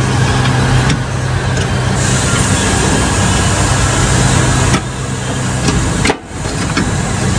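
Steady mechanical drone with a constant low hum, which briefly drops out about six seconds in, and a few faint ticks along the way.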